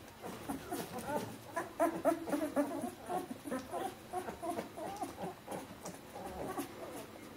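A litter of two-week-old Bernese Mountain Dog puppies whimpering and squeaking: many short, high, wavering calls overlapping one another, busiest in the middle and thinning out near the end.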